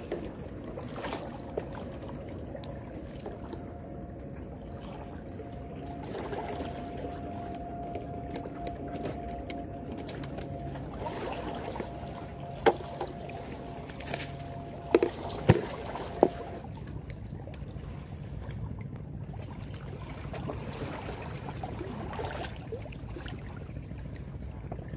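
Seawater washing among the concrete breakwater blocks, with a steady hum through the first half. Near the middle there are several sharp plastic clicks and knocks as a cooler box is opened and closed to put a caught fish inside.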